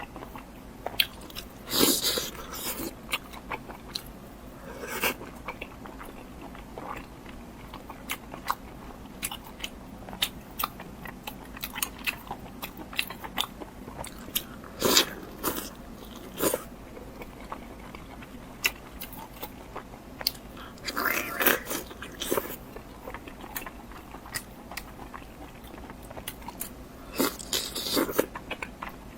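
Close-miked eating: a steady run of small wet clicks and chewing, with louder crunchy bites every few seconds.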